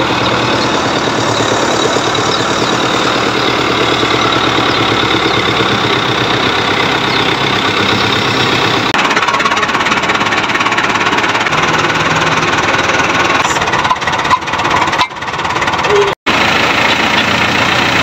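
Fiat 640 tractor's diesel engine idling with a steady clatter. The sound drops out for an instant near the end.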